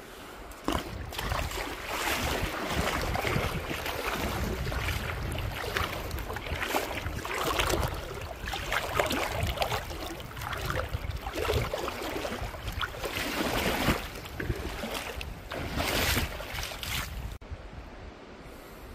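Shallow river water rushing and splashing over a rock close to the microphone, surging unevenly. It starts about a second in and stops sharply near the end.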